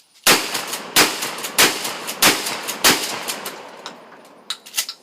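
Mossberg 590A1 pump-action shotgun fired five times in quick succession, about one shot every two-thirds of a second, with the slide pumped between shots. A few lighter metallic clacks follow near the end as the action is worked after the tube runs empty.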